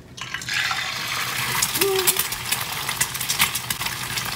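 Egg sizzling and crackling in hot canola oil in a frying pan, starting a moment in as the egg drops in.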